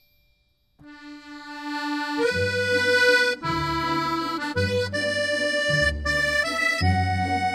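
Background music: after a moment of silence, a new piece starts with a single held note, and about two seconds in sustained chords and a bass line come in and change every second or so.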